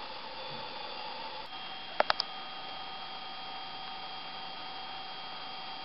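Room tone: a steady hiss with faint steady hum and whine tones. Three quick clicks come close together about two seconds in.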